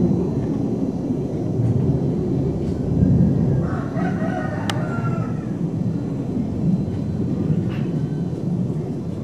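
A rooster crows once, about four seconds in, over a steady low rumble on the microphone. A brief sharp click sounds during the crow.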